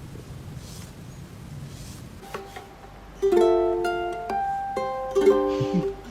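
Light plucked-string background music, ukulele-like, begins about three seconds in with a bouncy melody of short notes. Before it there is only a low, steady rumbling noise.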